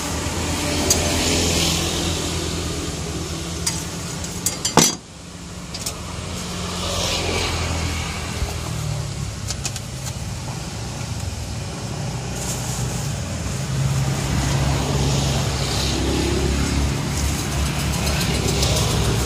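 Road traffic passing close by: motor vehicles running past, their engine rumble swelling and fading. There is a sharp clack just before five seconds in.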